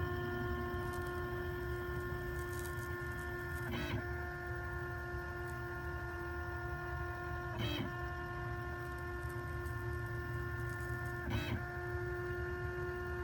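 Stepper motors of an OX CNC machine whining steadily as they drive a marker pen across paper. About every four seconds a brief click breaks the whine, where the pen reverses at the end of a zigzag stroke.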